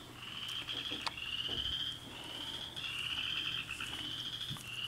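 Steady high-pitched animal trilling in repeated pulsing phrases about a second long, with a few light clicks as the lock cylinder is handled.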